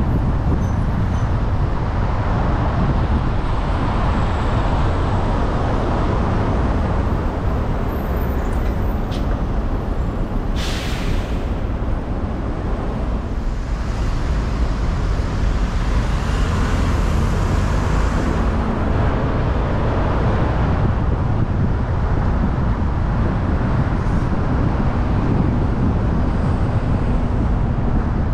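Traffic and road noise from a car driving along a busy city road, a steady low rumble. About ten seconds in comes a sharp hiss, about a second and a half long, of a large vehicle's air brakes releasing, and a fainter hiss follows a few seconds later.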